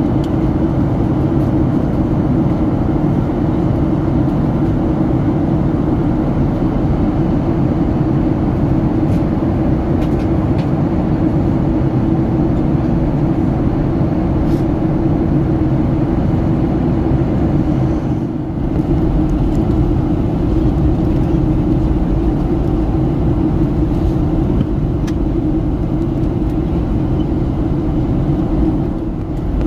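Steady passenger-cabin noise of a Boeing 737-800 in flight: the even rush of airflow and the drone of its CFM56-7 turbofans, with a continuous low hum. The level dips briefly about two-thirds of the way in.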